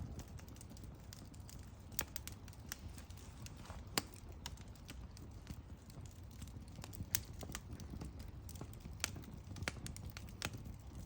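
Wood fire crackling: irregular sharp pops and snaps of burning logs over a low steady rumble, with the loudest pops about 2, 4 and 7 seconds in.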